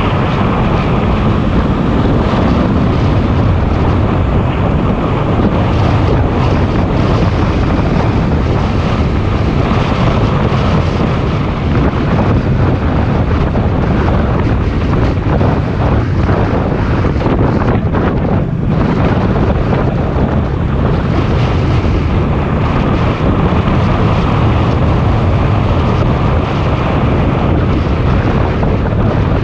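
Loud, steady wind buffeting the microphone of a moving motorcycle, with the engine's low hum underneath, its pitch shifting now and then with speed.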